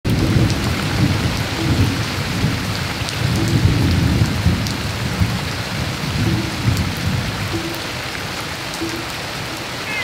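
Heavy rain falling on wet stone paving and garden foliage, an even hiss with a strong low rumbling underneath that eases near the end.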